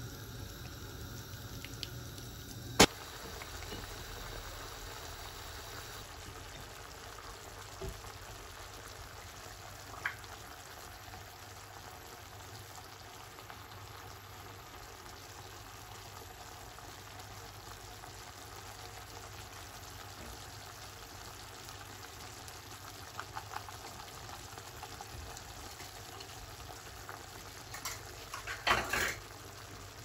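Cream sauce bubbling at a steady boil in a saucepan. A single sharp knock comes about three seconds in, and a brief clatter near the end.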